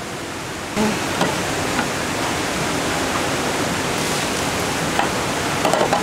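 Steady rush of a mountain stream, stepping up louder about a second in, with a few light knocks.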